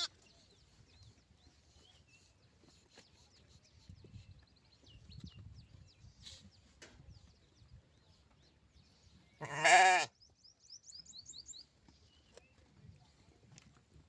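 A lamb bleats once, loud and wavering, about two-thirds of the way in, over faint high chirps in the background.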